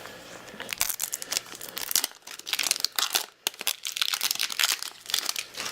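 Crinkling and tearing of the thin wrapping on a small blind-box toy egg as it is pulled open by hand, in quick irregular crackles.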